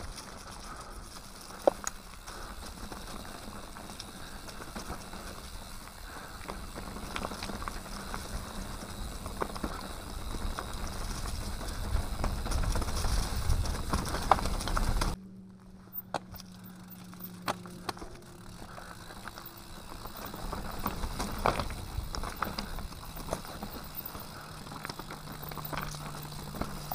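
Mountain bike rolling downhill on a dirt singletrack: tyres crackling over dry leaves, grass and loose stones, with many sharp clicks and knocks as the bike rattles over rough ground. A low rumble swells and then cuts off suddenly about halfway.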